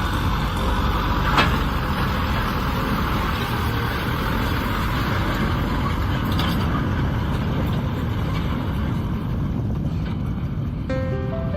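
Kubota M6040 SU tractor's diesel engine running steadily while pulling a plough through a field, with a sharp click about a second and a half in.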